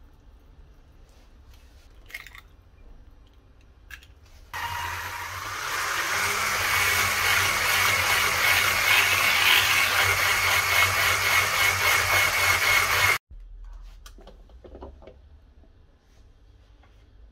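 Handheld electric mixer whisking batter in a plastic bowl: the motor starts abruptly about four seconds in, runs steadily with a constant whine for about nine seconds and cuts off suddenly. A few light knocks come before it.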